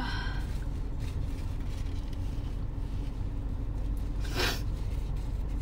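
Steady low rumble of a car engine idling, heard from inside the cabin, with one short sharp intake of breath about four and a half seconds in.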